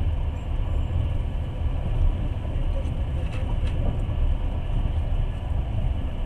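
Passenger train running along the track, heard from inside the carriage: a steady low rumble, with a couple of faint clicks a little past the middle.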